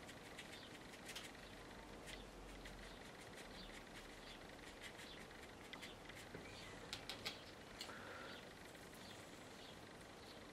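Faint, scattered ticks and scratches of a large watercolour mop brush dabbing paint onto paper.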